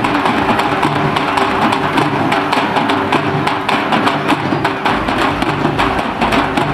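Fast, dense drumming from a procession drum band, with music and crowd noise underneath; a deeper low rumble joins near the end.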